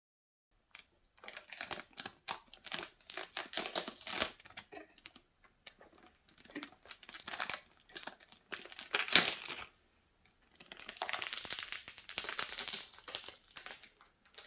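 Plastic packaging crinkling and rustling as it is handled and pulled off, in irregular bursts with a short pause about ten seconds in.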